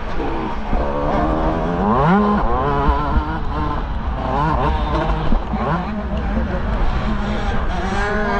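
125cc motocross bike engine revving hard, its pitch sweeping up and dropping again several times as it accelerates and shifts, over a steady low rumble.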